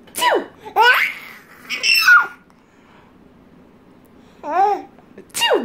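A baby laughing in short, high, squealing bursts: three in the first couple of seconds, a pause, then more near the end.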